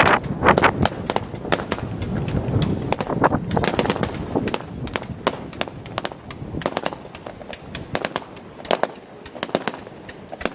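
Fireworks finale: a dense, loud volley of crackling bursts that thins out into scattered separate pops and fades.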